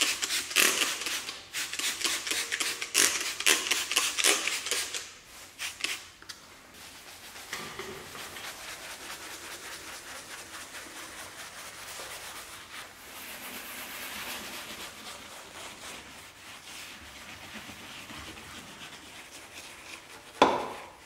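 Trigger spray bottle firing a rapid series of short sprays of cleaner onto a car's door panel. From about seven seconds in, a soft detailing brush scrubs steadily over the foamy panel, and there is one short louder burst near the end.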